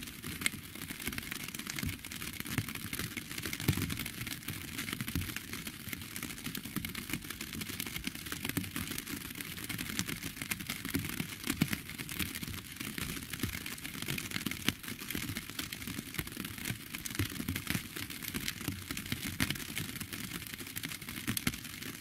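Steady rain falling, a continuous hiss threaded with many individual drops ticking sharply.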